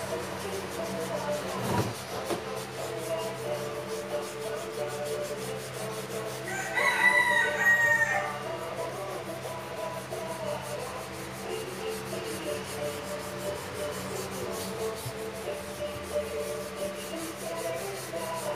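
Fingers rubbing pastel colour into paper to blend it, a steady soft scraping. A rooster crows once about seven seconds in, the loudest sound.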